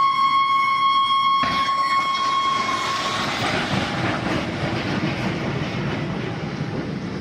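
A train horn sounds one steady held note, then stops about three seconds in. A passing train's rushing wheel and rail noise takes over, with clickety-clack, and slowly fades as it goes by. A single brief knock comes about a second and a half in.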